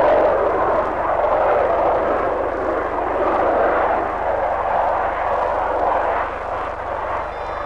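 Jet engines of a Boeing 747 airliner at high power on its takeoff run: a loud, steady rushing noise that eases a little near the end.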